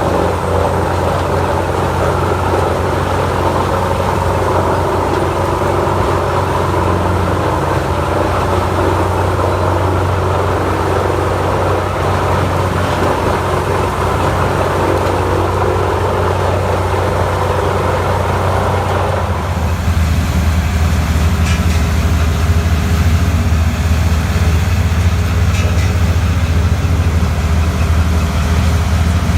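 Heavy diesel machine engine running steadily with a deep drone, under a higher rushing, grinding noise that cuts off about 19 seconds in; after that the engine's low drone is louder on its own.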